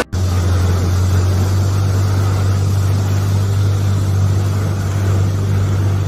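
An engine running steadily with a low, even drone, over a rushing wash of floodwater.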